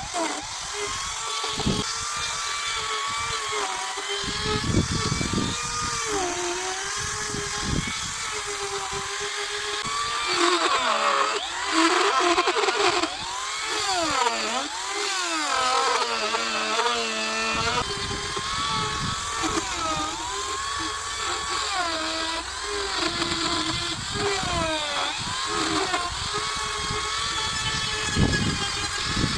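Chainsaw running and cutting into wood, its engine pitch rising and dipping again and again as it works, with the widest swings in the middle.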